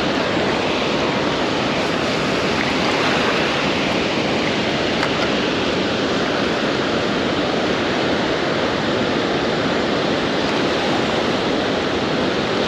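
Water rushing steadily through a dam spillway, an unbroken white-water rush.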